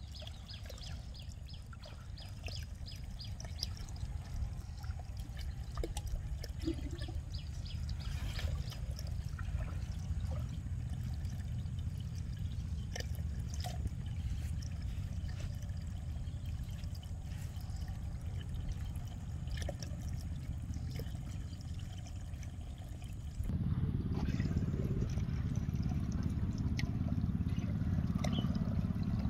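Water pouring and trickling steadily through a fish-trap channel, with small scattered ticks and splashes; it gets louder about three-quarters of the way through.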